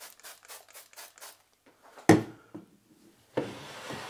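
Cooking oil glugging out of a bottle into a frying pan in a quick, even run of small pulses. About halfway through comes a single sharp knock, then a steady rushing noise through the last second or so.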